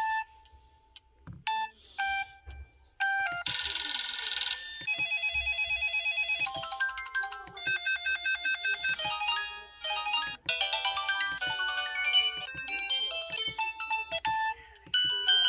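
Samsung Anycall SCH-S510D flip phone playing previews of its built-in ringtones: a few short beeps, then about three seconds in a string of electronic melody ringtones, each cut off after a second or two as the next one is selected.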